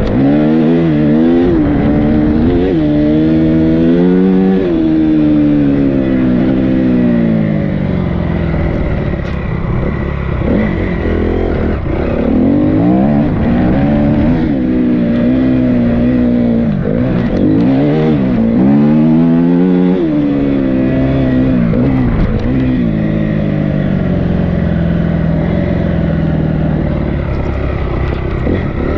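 A KTM EXC enduro dirt bike's single-cylinder engine under way, its note repeatedly rising as the throttle opens and dropping back at each gear change or easing off.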